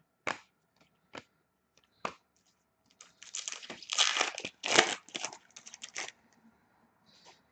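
Three sharp taps, then a trading card pack's wrapper being torn open and crinkled for about three seconds from around the three-second mark.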